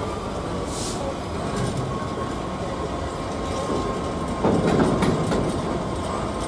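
A train running past: steady rail noise with a faint high steady tone. There is a brief hiss just under a second in, and the noise swells louder for about a second, about four and a half seconds in.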